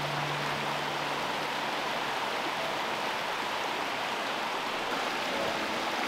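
Small woodland stream splashing over rocks in little cascades: a steady rush of running water.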